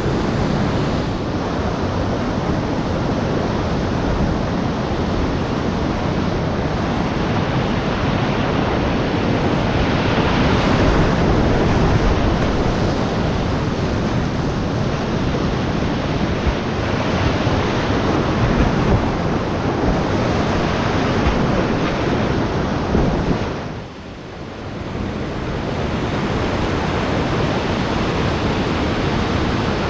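Whitewater rapids rushing loudly and steadily around a kayak, heard up close from the boat. A little over three-quarters of the way through, the rush drops away for a moment, then returns as the steady rush of a river drop.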